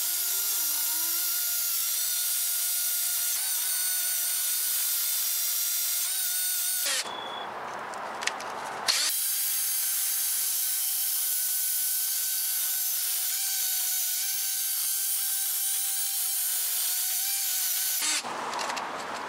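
Cordless drill spinning a wire brush against a rusty wheel hub face, scouring off rust: a steady whine over a scratchy hiss. It stops for about two seconds after about seven seconds, then runs again and stops near the end.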